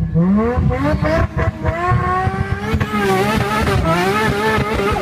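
Nissan Skyline GT-R's turbocharged RB straight-six accelerating hard, its revs climbing steeply with a brief break a little over a second in, then climbing again.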